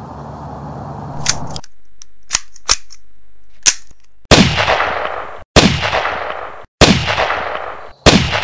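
A few short, sharp clicks, then four loud gunshots about a second and a quarter apart, each followed by a long echoing tail.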